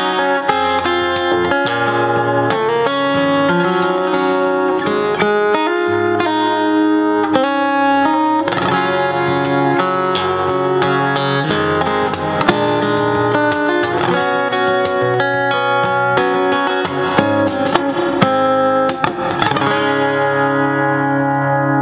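Overdrive F-41C 41-inch acoustic-electric guitar played fingerstyle, a song of picked notes and chords, ending on a chord left to ring near the end.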